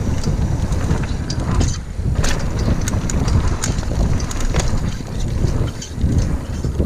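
Wind buffeting the camera's microphone as a mountain bike rides fast down a dirt trail, with tyre noise and frequent short rattles and clicks from the bike going over bumps.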